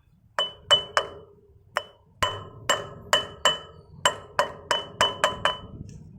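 A hammer striking metal in about fourteen sharp blows, two to three a second with a short pause after the first few. Each blow rings briefly with a clear metallic tone.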